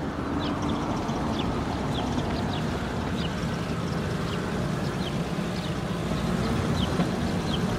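Cartoon toy dump truck's engine running steadily as it drives, a low rumbling hum, with birds chirping in the background.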